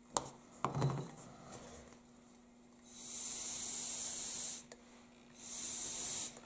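Two blasts of Dust-Off canned air hissing through its straw nozzle, the first about a second and a half long and the second about a second, blowing wet alcohol ink across the plastic. A click and a light knock from handling the can come near the start.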